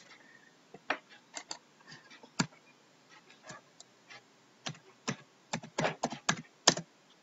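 Computer keyboard typing: a scattered run of separate keystrokes with short pauses between them, coming faster and louder near the end.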